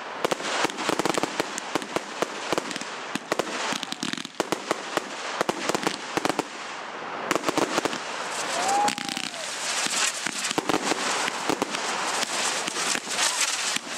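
Fireworks going off in a display: rapid, dense crackling and bangs throughout. A short whistle rises and falls about eight and a half seconds in.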